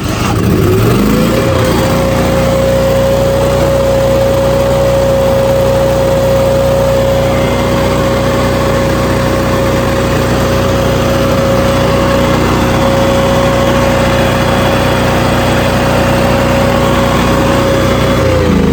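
An engine on the service truck starting and climbing over about a second and a half to a steady high speed, with a strong even whine. It holds there, then drops back down near the end while the engine keeps running.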